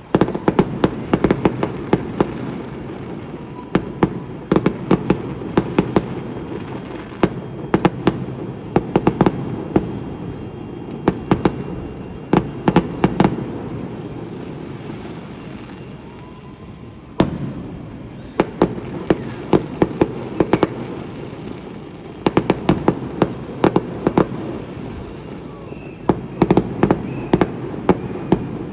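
Fireworks display going off: salvo after salvo of sharp bangs and cracks in quick clusters over a continuous crackling rumble. The bursts thin out for a few seconds in the middle, then resume with a single loud bang.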